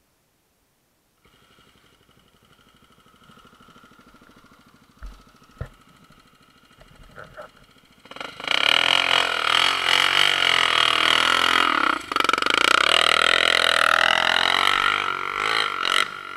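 Single-cylinder four-stroke trail motorcycle engine, a Honda dirt bike. It is faint at first, with a couple of low thumps about five seconds in, then loud from about halfway as it revs, its pitch sweeping down and back up.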